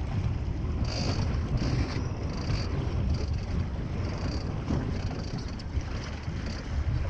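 Low, steady rumble of a fishing boat's engine, with wind buffeting the microphone and short bursts of hiss every second or so.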